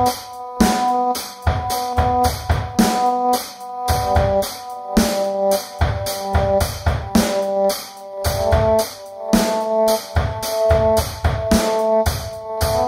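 Background music: a steady drum beat of about two hits a second under sustained, repeating pitched notes.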